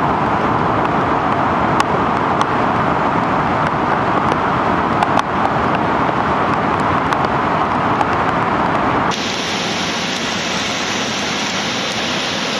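A waterfall in full flood, its whitewater making a loud, steady rush. About nine seconds in it cuts to a slightly quieter, hissier rush of the flooded river running over its banks.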